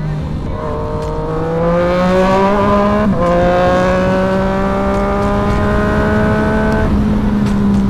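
Sport motorcycle engine accelerating hard. The revs climb for about two and a half seconds, dip at an upshift about three seconds in, then climb again more slowly until the throttle closes near the end.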